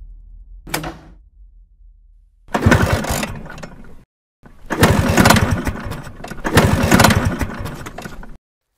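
Yamaha scooter's small single-cylinder engine being kick-started: a short click about a second in, then three kicks, each turning the engine over in a rough, rapidly pulsing rush that stops without the engine catching — the scooter won't start.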